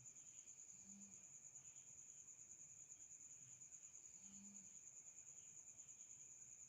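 Faint, steady, high-pitched cricket trill that carries on without a break. A very faint low hum swells about every three and a half seconds.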